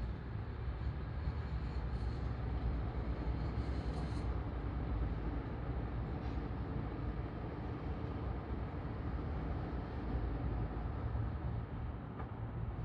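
Motor vehicle engine running with road noise: a steady low rumble with no siren.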